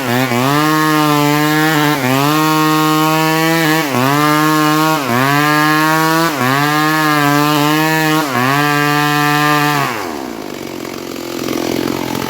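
Stihl MS 381 two-stroke chainsaw running at high revs while cutting wood, its pitch sagging briefly every second or two. About ten seconds in the engine winds down and the sound drops to a lower, rougher level.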